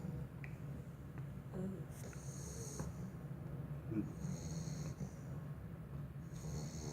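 Pit bull puppy snoring in deep sleep: a steady low rumble, with a high hiss that comes back about every two seconds.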